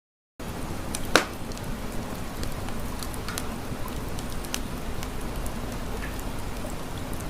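Campfire crackling: a steady hiss with irregular sharp pops of burning wood, one louder pop about a second in.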